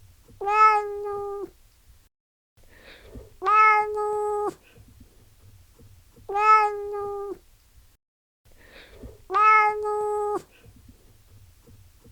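Domestic cat meowing: four steady, drawn-out meows about three seconds apart, each lasting about a second.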